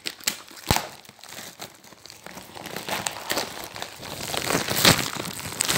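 Packaging being crinkled and handled while a parcel is unwrapped: irregular crackling and rustling with a few sharp clicks, the loudest near the end.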